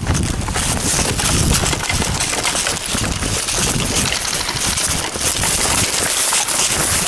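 Footsteps with the rustle and crackle of clothing, gear and undergrowth close to the microphone, a dense continuous crackling.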